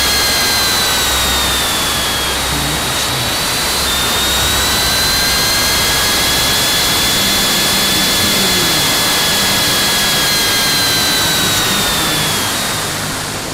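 Loud rush of wind over an onboard camera on a radio-controlled F3F slope-racing glider in fast flight, with a high airflow whistle that slowly slides up and down in pitch. It eases off near the end.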